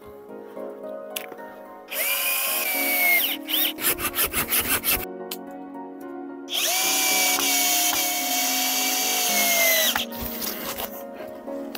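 Cordless drill running in two bursts, about a second and a half and then about three and a half seconds, each a steady whine that drops in pitch as the motor stops, with a quick rattling run of clicks between them. Background music plays underneath.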